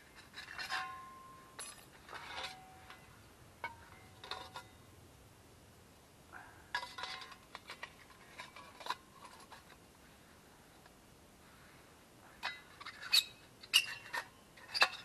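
Metal twig stove clinking and rattling as it is taken out and handled: scattered clinks, some with short ringing tones, a quiet spell past the middle, then a run of sharper clinks near the end.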